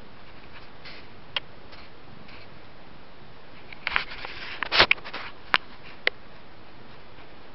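Kitten suckling from its mother cat: a few sharp, wet clicks over a steady low hiss, with a louder cluster of clicks and rustling about four to five seconds in.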